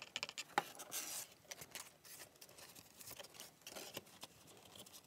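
Stiff watercolor paper rustling and clicking as it is handled, with thread drawn through the punched sewing holes of a pamphlet stitch: a run of light rustles and small ticks, the sharpest about half a second in.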